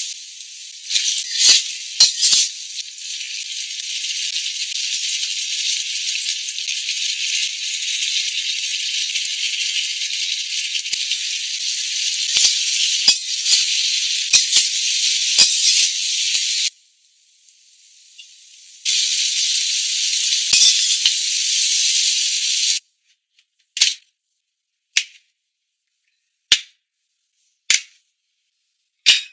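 Oil sizzling in a hot wok as chili and bean paste fry, then squid is stir-fried, with the ladle clinking against the wok now and then. The sizzling stops abruptly about 23 seconds in. Five sharp clicks follow, about one every second and a quarter.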